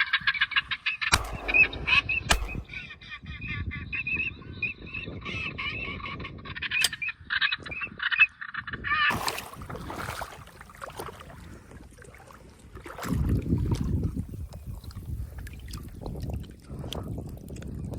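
Ducks quacking in a fast, nasal run of calls for several seconds, broken by a couple of sharp cracks about one and two seconds in.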